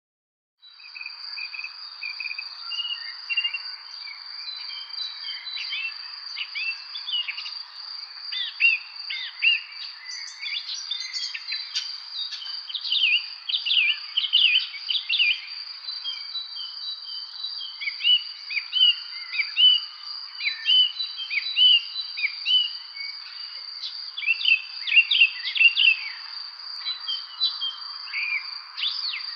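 Several songbirds chirping in quick, downward-sweeping notes, busier in the second half, over a continuous high-pitched insect trill and a soft background hiss.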